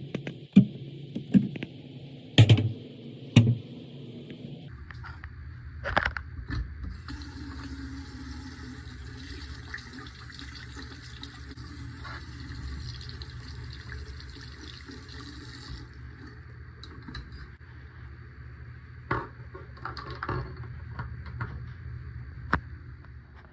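Tap water running into a sink, with clinks and knocks as small door knobs are washed. A few sharp knocks come first, and the water's hiss is strongest from about a third of the way in to about two-thirds through.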